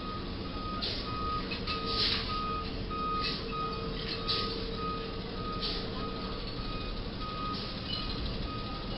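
Reversing alarm of a Ryder box truck beeping steadily on one pitch, a bit under twice a second, as the truck backs up, over its engine running. A few brief bursts of noise come between the beeps.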